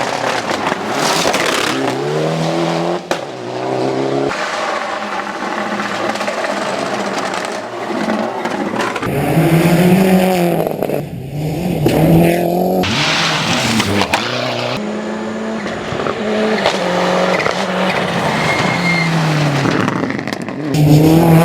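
Rally cars at full speed on gravel, their engines revving up and dropping back again and again through gear changes, in several short takes cut one after another.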